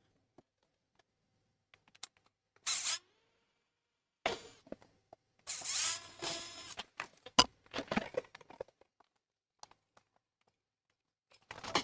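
Small drill making 3 mm holes in a 3D-printed plastic part, running in short bursts with a longer whining run in the middle, between scattered handling clicks.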